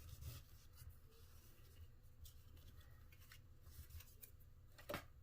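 Near silence, with faint rubbing and light clicks of trading cards and packs being handled, and one slightly louder tap near the end.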